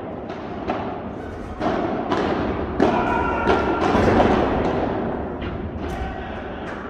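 Padel balls struck with solid paddles and bouncing off the court and glass walls: a string of sharp hits and thuds echoing in a large indoor hall, busiest around three to four seconds in.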